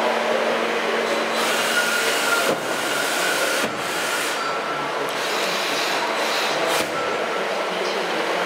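Daewoo Puma 250 LMB CNC lathe running: a steady mechanical whirring, with a low hum that drops out about two seconds in and a few brief knocks.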